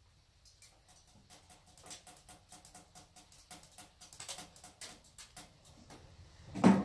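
Bulsajo pellet stove burning hard on its level-6 setting: a run of crackles and ticks from the burn pot that grows denser, over a faint steady hum. A single loud thump comes near the end.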